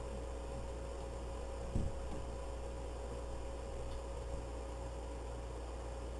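A steady low electrical-sounding hum with a thin whine above it, and one short thump a little under two seconds in.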